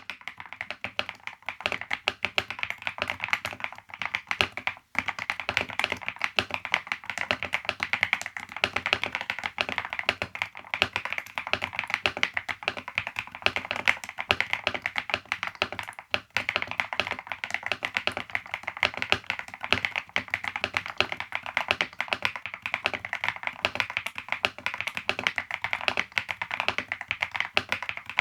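Typing on a Yunzii C98 mechanical keyboard with Yunzii Candy linear switches and jelly keycaps: a fast, continuous stream of keystrokes, with brief pauses about 5 and 16 seconds in.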